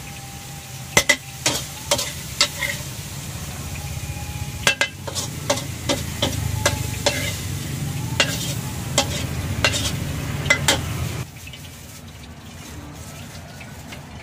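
Metal spatula clanking and scraping against a steel wok as stir-fried noodles are scooped out, with repeated sharp strikes. Underneath is a steady low rumble of the wok burner, which drops away about eleven seconds in.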